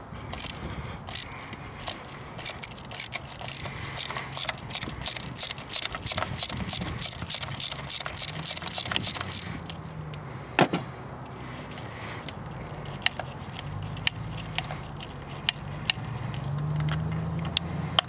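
Ratchet clicking on a long extension as a spark plug is backed out of the Corolla XRS's 2ZZ-GE engine. Quick runs of clicks fill the first half, then single clicks come here and there.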